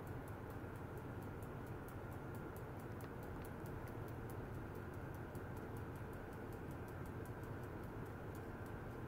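Fast, even ticking, about five or six light high clicks a second, over a steady low electrical hum, from a function generator driving a wired stainless-steel rod in an ultrasonic test setup.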